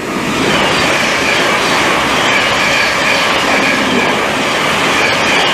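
Thameslink Class 700 electric multiple unit passing through the station at speed: a loud, steady rush of wheels on rail with a faint high whine over it.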